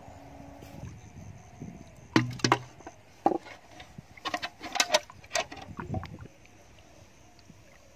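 A run of sharp knocks and clatters in a metal bucket, starting about two seconds in and stopping after about six, as a plastic bottle and a wooden stick are handled inside it.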